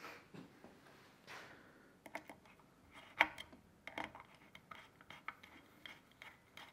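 Small metal clicks and light scrapes of a hand driver turning the pad-retaining bolt into a Shimano hydraulic disc brake caliper. The bolt is only being snugged lightly, not tightened hard. The loudest click comes about three seconds in.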